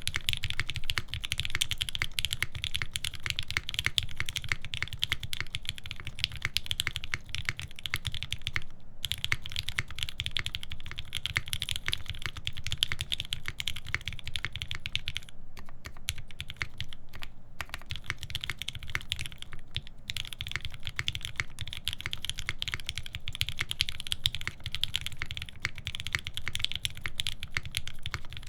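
Fast continuous typing on a custom UNIKORN R2.1 mechanical keyboard with lubed Alpaca linear switches, GMK keycaps and a full FR-4 plate: a dense stream of key clacks, with a brief pause about nine seconds in and a couple of short breaks around sixteen to seventeen seconds in.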